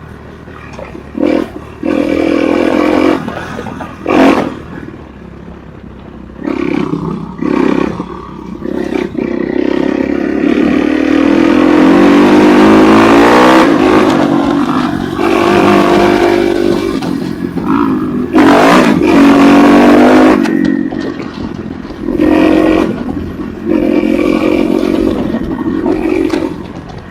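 Enduro motorcycle engine revving in repeated throttle bursts, its pitch rising and falling, with a longer sustained pull in the middle and a few sharp knocks.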